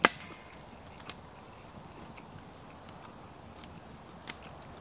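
Close-miked chewing of a mouthful of beef chow mein noodles: a few soft, scattered mouth clicks, opened by one sharp, loud click.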